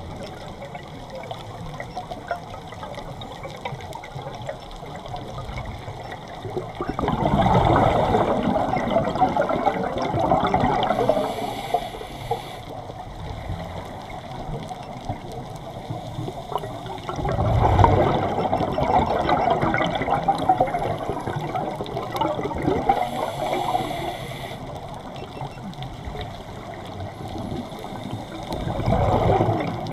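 Scuba diver's regulator breathing underwater: three long rushes of exhaled bubbles about ten seconds apart, with quieter stretches in between.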